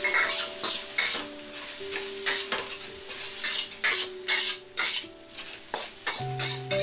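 Metal spatula stirring and tossing chicken and vegetables in a sizzling wok, in quick scraping strokes about twice a second over a steady frying hiss.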